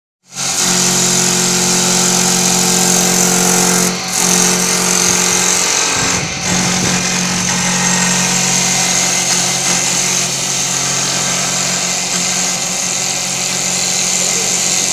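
TJ1516 CNC wood lathe running: a steady machine hum under a high hiss, with brief dips about four and six seconds in.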